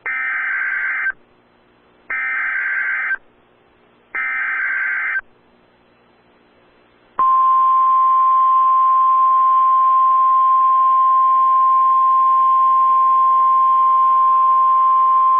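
NOAA Weather Radio Emergency Alert System signal: three one-second bursts of SAME header data about two seconds apart, then, about seven seconds in, the steady 1050 Hz weather-radio warning alarm tone, which holds at full level. The sequence heralds a tornado warning.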